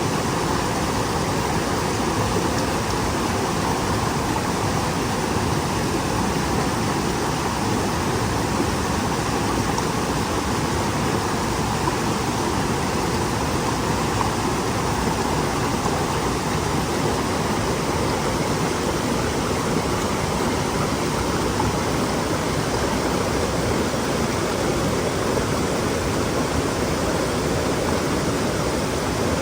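Stream water running and babbling over rocks, a steady rushing that does not let up.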